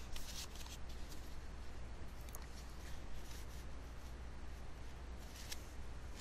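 Faint rustling and small handling sounds over a steady low electrical hum and hiss.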